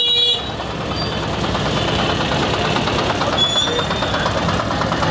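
A motor vehicle engine idling steadily amid street traffic noise, with a brief high-pitched tone right at the start.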